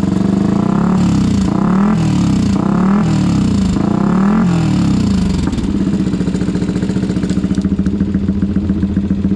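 Yamaha WR155R single-cylinder engine through an aftermarket exhaust with its silencer insert fitted (silent mode), revved in a few quick throttle blips that rise and fall, then settling to a steady idle about halfway through. The silent mode only takes the bass out of the exhaust note.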